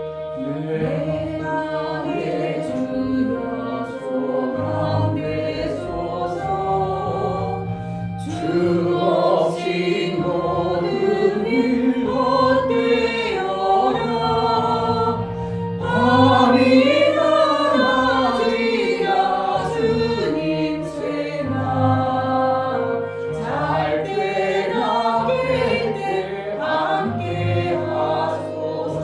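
Hymn sung by a group of voices over sustained instrumental accompaniment.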